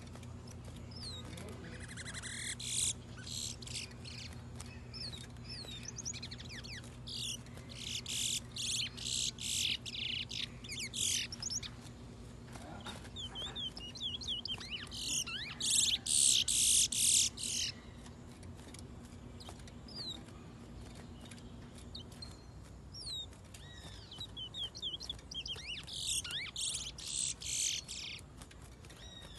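Caged songbird singing: several loud bouts of rapid trilled phrases, each a few seconds long and the strongest about halfway through, with short chirps and whistled notes between them.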